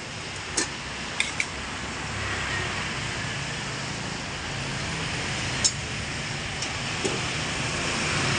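Steady rushing noise at a bánh xèo cooking station, with a few light metallic clicks as tongs and pan lids are handled.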